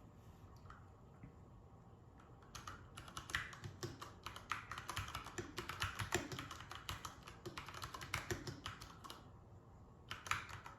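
Typing on an IQUNIX F96 mechanical keyboard fitted with Cherry MX Brown switches: a quick run of key clacks starting about two and a half seconds in and stopping after about six and a half seconds, with a few last keystrokes near the end.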